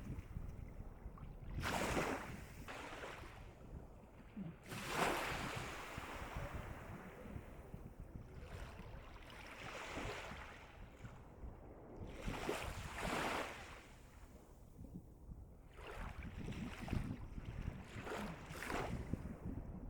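Calm sea waves breaking and washing up on the shore, a hiss of surf swelling every two to three seconds over a steady low rumble.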